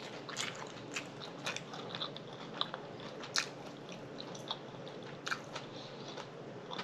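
Close-miked chewing of a mouthful of collard green wrap with turkey, cheese and pickle: smacks and small crunches about twice a second, a few of them sharper than the rest.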